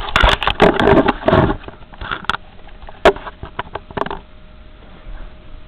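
Remote-controlled flying toy shark with a small motor starting up. A burst of rustling and clattering for about a second and a half, then a few sharp clicks and light taps over a faint steady motor whine.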